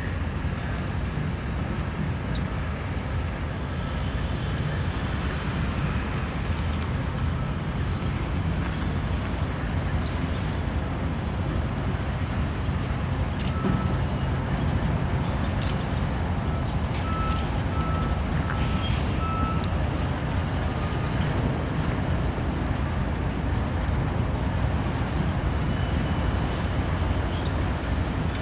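Diesel freight locomotives running with a steady, deep rumble as the train moves slowly past. Near the middle, a few short, faint beeps sound in a row.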